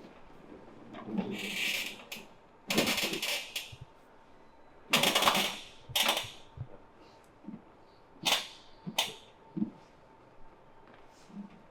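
Hands slapping and chopping on the body in a massage, in quick bursts of rapid strikes with a few single sharp claps between them.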